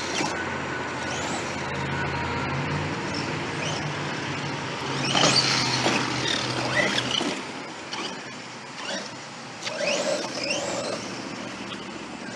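Electric motor and drivetrain of a Redcat Shredder 1/5-scale RC monster truck whining up in pitch as it accelerates in bursts, twice strongly about five and ten seconds in, over a steady hiss of tyres and wind.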